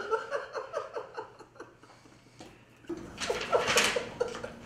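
A man laughing in short, quickly repeated chuckles, then laughing again more breathily about three seconds in.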